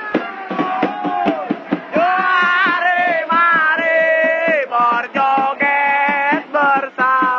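A crowd of football supporters chanting together in long held, sung notes, with a steady drum beat under the singing.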